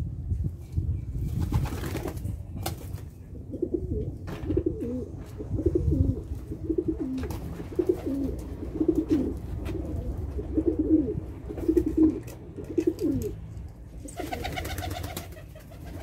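Domestic pigeons cooing, a run of repeated low warbling coos that starts a few seconds in and goes on for about ten seconds, over a steady low rumble.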